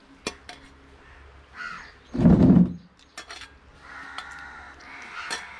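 A crow cawing in the background, with a few sharp clicks of a spoon or utensil on a plate and one louder dull knock a little over two seconds in.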